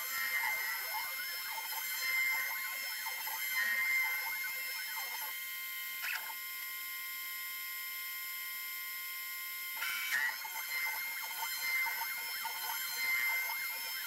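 DeWalt router on an X-Carve CNC machine running with a high whine as its bit carves a dish out of an East Indian rosewood slab, the pitch wavering with the cut. The sound goes steadier for a few seconds in the middle.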